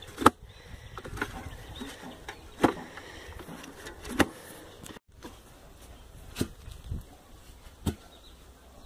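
Irregular knocks and thuds, about six, as a toothed galvanized steel pipe bit is raised and dropped into a hand-bored well hole in wet, sandy soil.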